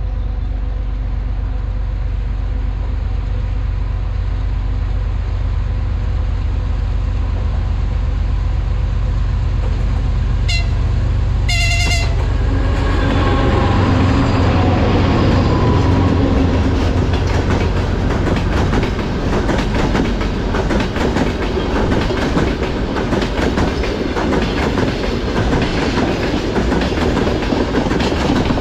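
2TE116UD twin-section diesel locomotive with a gondola freight train: a steady low diesel rumble, then two short horn blasts about ten seconds in, the second a little longer, sounded as a greeting. The engines swell as the locomotive passes, and the wagons follow with a steady clickety-clack of wheels.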